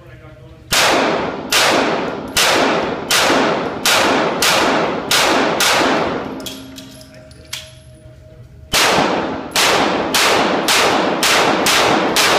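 Springfield XD-S 9mm pistol shots in an indoor range, each with a long echoing tail: a string of about eight shots under a second apart, a pause of about two and a half seconds for a magazine change, then another quicker string of about seven shots.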